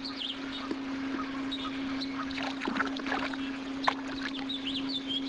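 Small fishing boat on a lake: a steady low hum under birds chirping, with a few light knocks, the sharpest about four seconds in.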